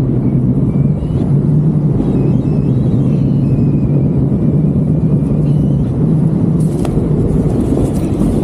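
Strong wind rushing over the microphone of a paraglider in flight into a headwind: a loud, steady low rush, with faint wavering high tones above it.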